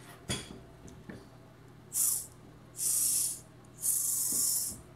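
Three short hissing 'pssh' sounds made with the mouth, about a second apart, the third the longest, after a couple of faint handling clicks.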